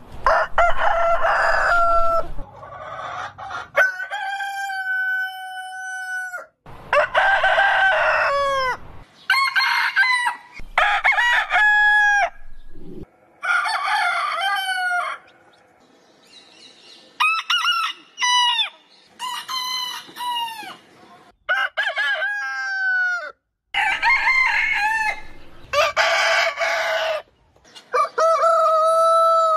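Several different roosters crowing one after another, about a dozen separate cock-a-doodle-doo calls of varied pitch, most ending in a falling drawn-out note and one held steady for about two seconds.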